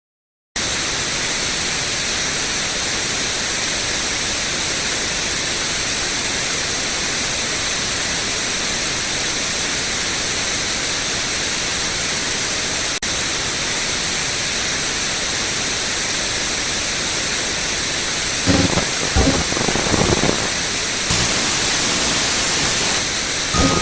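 Loud, steady static hiss, like a dead broadcast signal, cutting in about half a second in after a moment of silence. A few low bursts break through it about three-quarters of the way in.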